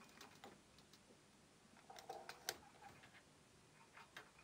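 Faint clicks and small knocks of banana-plug test leads being handled and pushed into the sockets of a bench power supply, with a cluster of them about two seconds in and one sharper click about half a second later.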